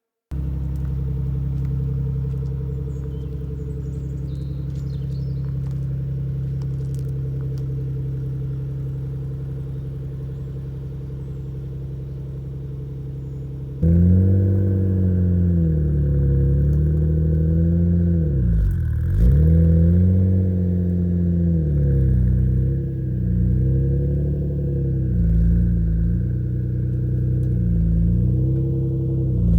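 Nissan Skyline R32 GT-R's RB26 twin-turbo straight-six idling steadily. About halfway through it gets louder and is revved up and down several times in free-revving blips.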